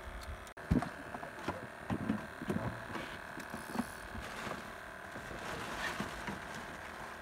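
Scattered light knocks and bumps in a wooden fishing boat, the loudest a low thump just under a second in, over a faint steady hiss.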